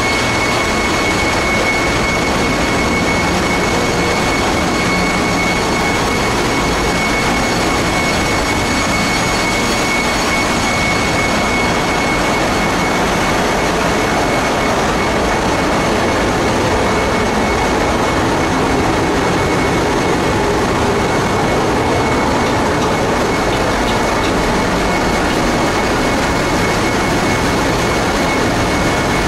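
Loud, steady machinery noise in a Cape-size cargo ship's engine room: engines, pumps and fans running together, with a steady high whine over the din.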